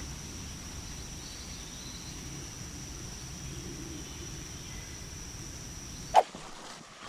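Insects droning with one steady high tone over a low outdoor rumble. About six seconds in a single sharp knock sounds, and the drone stops.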